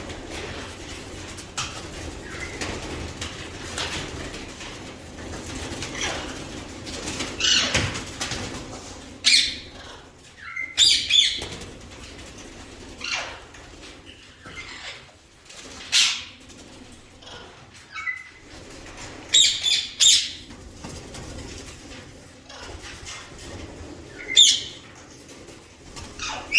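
Parrots flapping their wings and calling in short bursts every couple of seconds.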